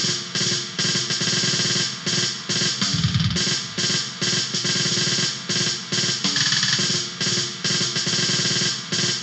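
Black noise demo recording: a drum kit with snare, hi-hat and cymbals pounding fast under a dense wall of noise.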